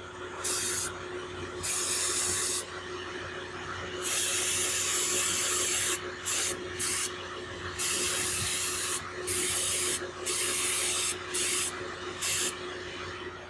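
Aerosol contact cleaner sprayed in about ten hissing bursts of differing lengths, the longest about two seconds, to clean out the electrical connector plug of a DPF differential pressure sensor.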